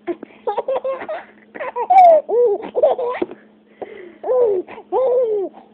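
A young child laughing and giggling in a string of short, high-pitched bursts, several of them falling in pitch.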